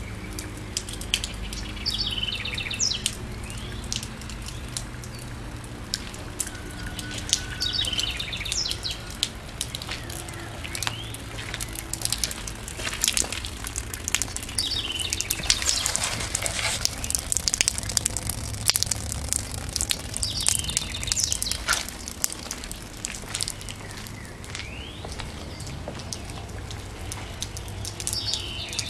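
A bird singing the same short, high phrase about every six seconds, over many small sharp clicks and crackles and a steady low rumble.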